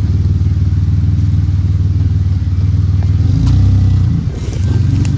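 1989 Ford Ranger engine running steadily, freshly started. A little past three seconds in it revs up briefly and then drops back, and a few sharp clicks come near the end.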